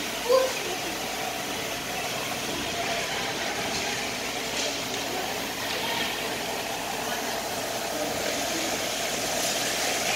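Ice rink ambience during a hockey game: a steady mechanical hum with a few faint clacks from sticks and puck. There is a short loud sound about a third of a second in.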